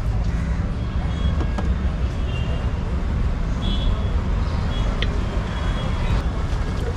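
Steady rumble of city street traffic, with a few short high tones and an odd click over it.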